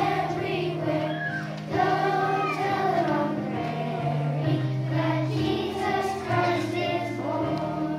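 Children's choir singing a song, with held low accompaniment notes changing underneath.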